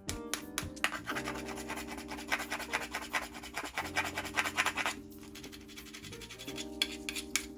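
Mussel shells being scrubbed and scraped clean: a quick run of rough scratching strokes that thins out after about five seconds. Soft background music plays underneath.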